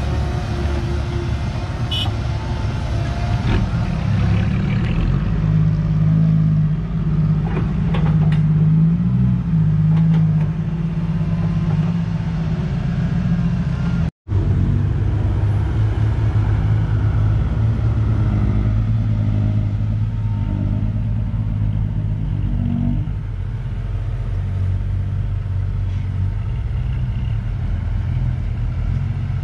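Heavy diesel engine of a Komatsu excavator running steadily, working harder for several seconds about a quarter of the way in, with a few faint clanks. The sound cuts out for a moment about halfway through.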